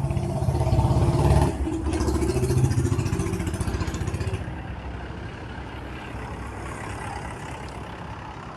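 A motor vehicle's engine running with a low, rapidly pulsing rumble, louder for the first four seconds or so and then quieter and steady.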